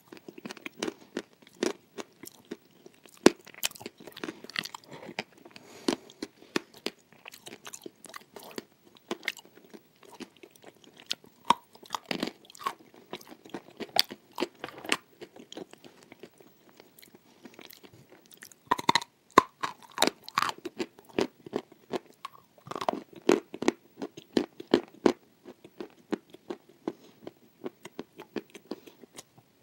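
Close-up mouth sounds of someone chewing dry, crunchy edible clay: irregular sharp crunches with softer chewing between, thickest in the second half.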